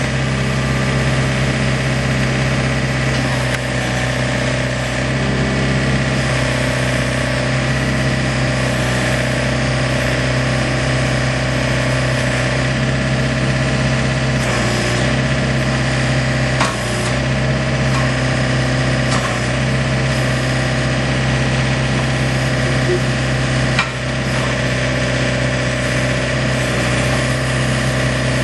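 Diesel engine of a John Deere 110 compact backhoe loader running steadily, with a few short clicks.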